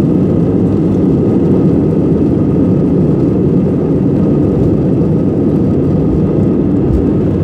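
Airliner cabin noise after landing: jet engines running in a steady low rumble, with a faint steady whine above it.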